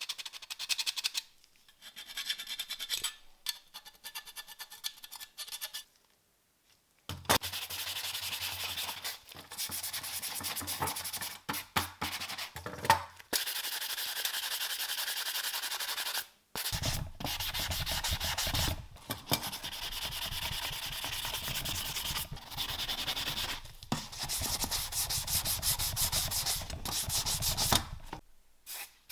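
Sandpaper rubbing on a rusty model car's body, in long spells of steady scraping broken by short pauses. It is fainter and scratchier for the first few seconds, then much louder from about a quarter of the way in.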